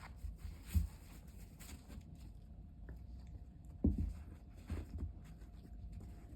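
Border collie puppy grinding its teeth: faint, irregular scraping clicks, with two louder low thumps, one about a second in and one near four seconds.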